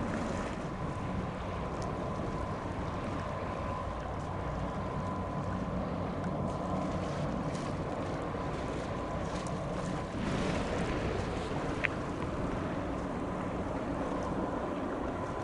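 Wind buffeting the microphone over a steady low rumble, with a thin steady whine. There is a single sharp click about twelve seconds in.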